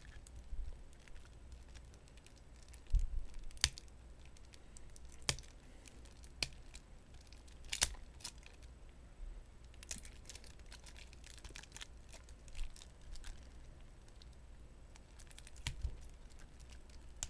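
Trading card booster pack wrapper being handled and torn open: faint, scattered crinkles and crackles of foil and plastic wrapping.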